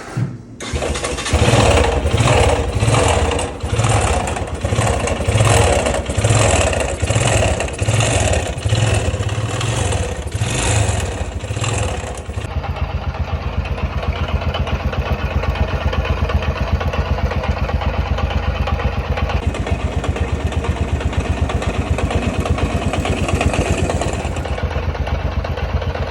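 Suzuki Yes 125 motorcycle's single-cylinder four-stroke engine starting about half a second in. For the first twelve seconds it runs unevenly, rising and falling about twice a second, then it settles into a steady idle. The engine is making a noise that the owner is showing as a fault.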